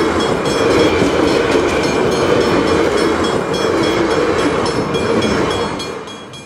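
A loud, dense clattering noise with a faint high squeal over it, starting suddenly and fading out near the end.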